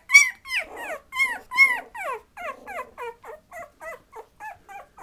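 Three-week-old Patterdale Terrier puppies squealing and yipping as they play: a rapid string of short, high-pitched cries, about four a second, loudest in the first two seconds and then growing weaker.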